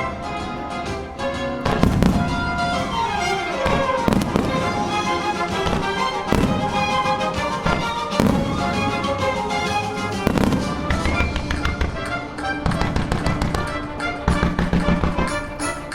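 Aerial firework shells from Nomura Fireworks bursting with sharp bangs every couple of seconds, with runs of rapid crackling near the middle and end, over the show's accompanying music.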